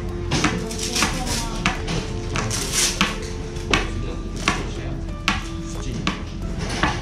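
Sharp, irregularly spaced knocks and taps, about one every half second to a second, over a background of steady held musical notes.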